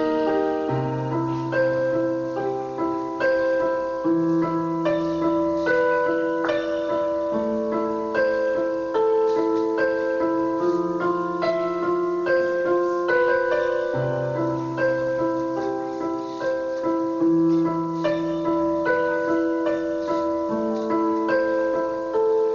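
Instrumental piano accompaniment of a song playing between sung verses: held chords over a repeating bass line, with a melody of struck notes above.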